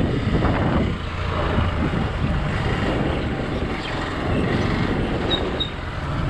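Hero Xpulse 200 single-cylinder motorcycle engine running while being ridden, with wind buffeting the microphone.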